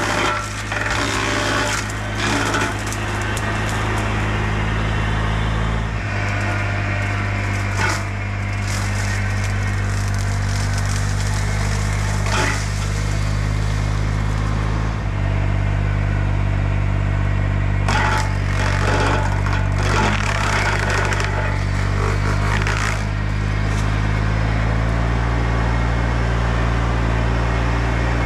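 Bobcat E35 mini excavator's diesel engine running steadily under load while its Baumalight mower head cuts through oak limbs, with repeated cracking and splintering of wood. The engine note shifts twice as the load changes.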